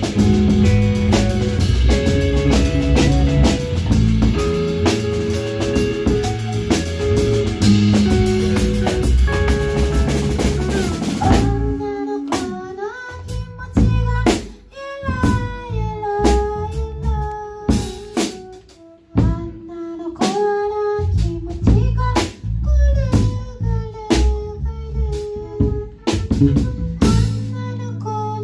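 A live band playing with a drum kit: a dense full-band passage with busy drumming, which thins about eleven seconds in to drum hits under a single bending melody line.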